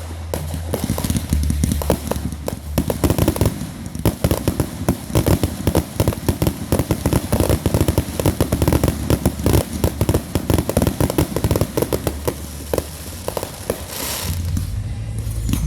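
Fireworks crackling: a dense, rapid run of sharp pops and cracks, many a second, thickest from about three seconds in until near the end.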